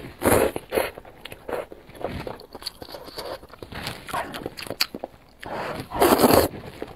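A person slurping noodles from a bowl of spicy broth: a loud slurp just after the start and a longer, louder one about six seconds in, with soft chewing between.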